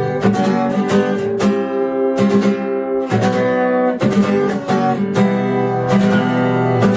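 Acoustic guitar strumming chords in a steady rhythm, an instrumental break with no singing.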